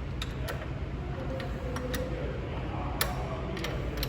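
Scattered sharp metallic clicks and taps of a wrench working a bolt on a diesel engine's oil pump, about eight in all at an uneven pace, the loudest about three seconds in.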